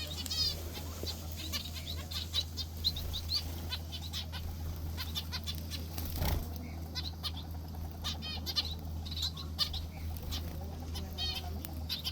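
Aviary finches chirping: many short high cheeps and quick repeated-note trills, with scattered clicks. A steady low hum runs underneath.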